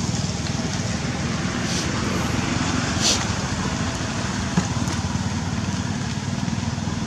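A motor vehicle's engine running steadily with a low, evenly pulsing rumble. A brief hiss comes about three seconds in and a small click about a second and a half later.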